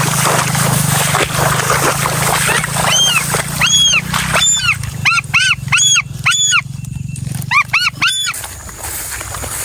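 An animal calling: about ten short, arched, whistling calls, each rising then falling in pitch, coming in quick runs over about five seconds, over a steady low hum.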